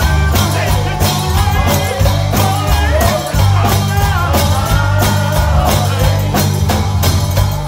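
Live gospel band music with heavy bass and a fast, steady drum beat, and a melody line bending up and down over it.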